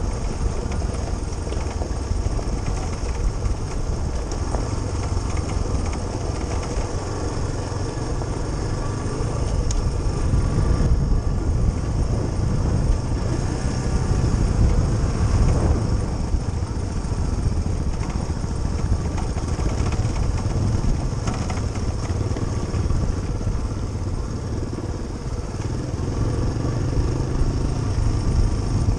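Suzuki DR350SE's single-cylinder four-stroke engine running as the bike rides along a gravel dirt track, its note rising and falling with the throttle, with a climb in revs about halfway through.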